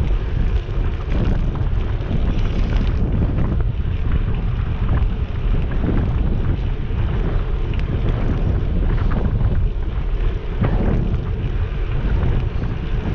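Wind buffeting a GoPro Hero 7's microphone on a moving bicycle: a loud, steady rumble that rises and falls with the gusts.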